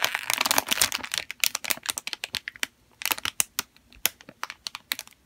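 Clear plastic packaging bag crinkling in a run of irregular sharp crackles as hands pull it open and reach in for the squishy toy inside.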